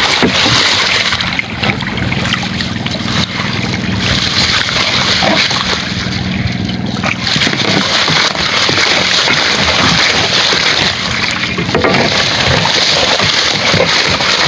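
Sea water splashing and sloshing as a net bag full of sea urchins is swished back and forth beside the boat to knock off their spines. A small engine runs steadily underneath.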